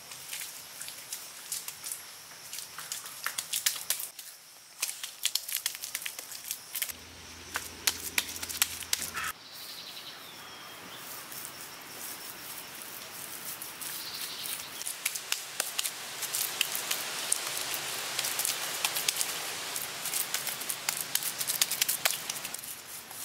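Hands working wet clay mud onto a lashed stick frame: a run of small clicks and taps, and from about two-thirds of the way in a denser wet smearing and patting as mud is pressed and smoothed on. A short falling whistle about ten seconds in.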